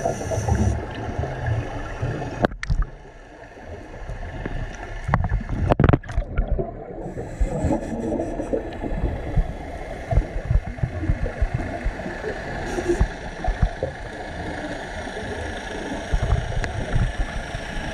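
Underwater sound picked up through an action camera's waterproof housing: a continuous muffled, rumbling wash of water with a faint steady hum. A few sharp knocks hit the housing about two and a half and six seconds in.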